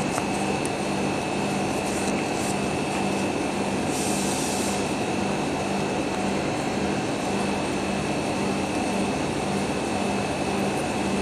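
Steady machine drone with a thin high whine and a pulsing low hum, and a brief hiss about four seconds in.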